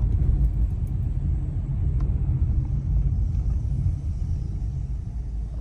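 Steady low rumble of a car's engine and road noise heard from inside the cabin, easing a little near the end.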